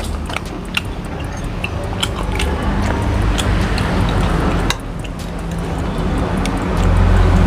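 Metal spoon and fork clicking and scraping against a ceramic soup bowl, a scatter of short sharp clinks, over a steady low rumble that grows louder near the end.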